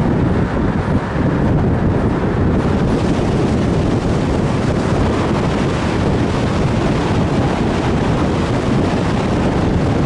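Steady wind rushing and buffeting over the microphone of a camera held out of a moving car's window, with the car's road noise underneath.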